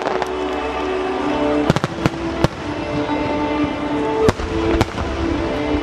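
Fireworks going off: a quick cluster of sharp bangs about two seconds in, then two more near four and five seconds in, the one near four seconds the loudest. Music with long held notes plays under the bangs.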